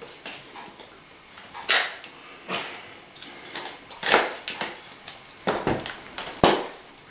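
A beer bottle's cap being pried against the edge of a hardcover book: a handful of short, sharp knocks and scrapes, spaced a second or so apart.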